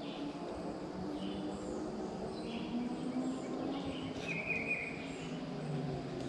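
Woodland birds calling: short chirps recur every second or so, and one bright trilled call of about half a second comes a little past the middle. Beneath them runs a low, steady drone of several sustained tones.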